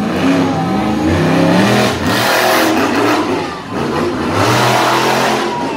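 Monster truck engine revving hard, its pitch climbing and falling several times as the throttle is worked, with a short drop in loudness about two-thirds of the way through.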